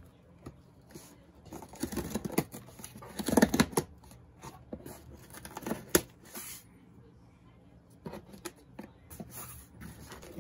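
Screwdriver tip dragged through the packing tape on a cardboard shipping box, tearing the tape and scraping the cardboard in several short irregular strokes, with one sharp tap about six seconds in.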